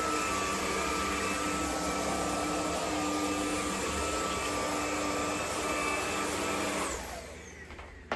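Cordless stick vacuum running steadily with a whining hum, then switched off about seven seconds in, its motor winding down with a falling pitch.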